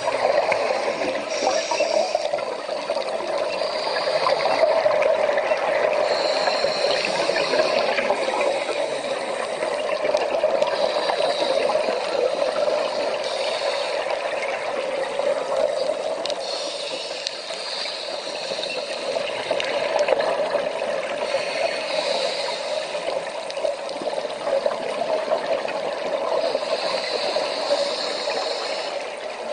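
Underwater ambience picked up by a camera: a steady rushing water noise, with a brief higher hiss every few seconds.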